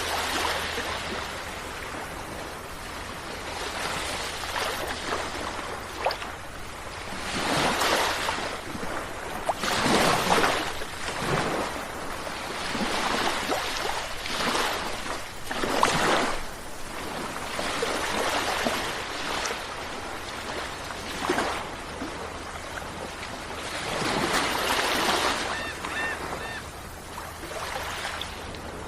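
Sea waves breaking and washing ashore, a steady surf hiss that swells into louder surges every few seconds.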